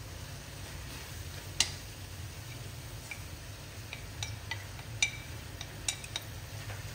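Scattered light clicks and taps of wooden chopsticks against a ceramic bowl and an aluminium wok as fresh herbs are scraped into the pan. The sharpest tap comes about one and a half seconds in, with a few more near the end, over a steady low hum.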